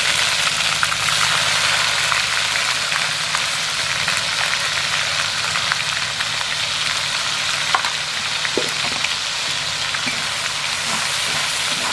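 Wet masala paste of onion, ginger and garlic sizzling in hot mustard oil in a kadai: a steady frying hiss with scattered crackles and pops.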